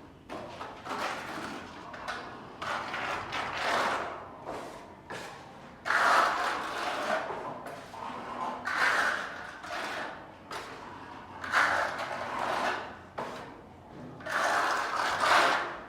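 Repeated scraping strokes of a hand tool across a wall, each lasting about a second or so, in an uneven rhythm with some strokes louder than others.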